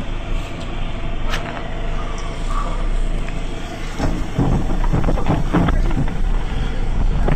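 Heavy vehicle's engine running steadily, heard inside the cab, with voices talking from about four seconds in.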